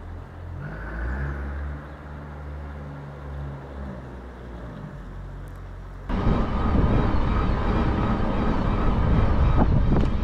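A low motor hum whose pitch shifts and falls away. About six seconds in it cuts suddenly to loud wind rush and rolling noise from a mountain-bike-mounted camera while riding.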